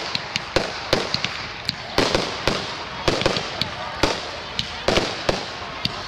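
Fireworks display: aerial shells bursting in a rapid, irregular series of sharp bangs, two or three a second, over continuous crackling.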